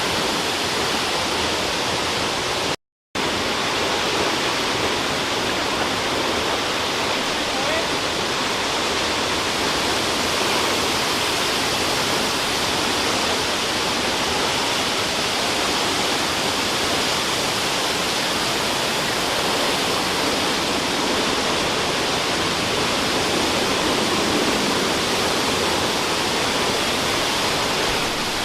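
Wailua Falls, a large waterfall, pouring into its plunge pool: a loud, steady rush of falling water, broken by a moment of total silence about three seconds in.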